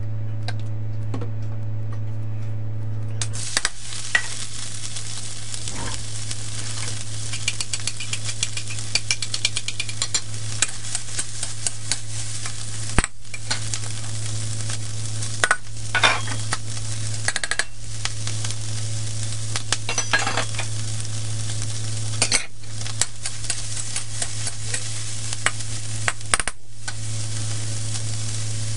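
Diced roast duck sizzling in hot oil in a steel wok, stir-fried with a spatula that scrapes and clicks against the metal; the sizzling starts about three seconds in. A steady low hum runs underneath.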